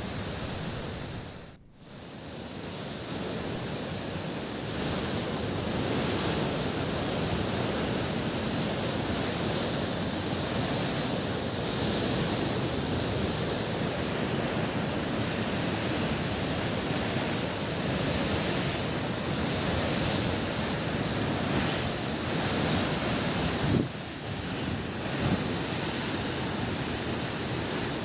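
Floodwater rushing through a dam's open spillway gates in a heavy flood release, with 24 of its 25 gates raised. It makes a steady, loud rush of water with wind on the microphone, and drops out briefly about two seconds in.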